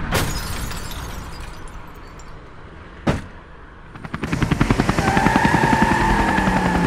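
A sharp bang at the start fades into a dying car-like noise, with a single click about three seconds in. From about four seconds a helicopter sound effect comes in: a fast rotor chop with a steady whine over it.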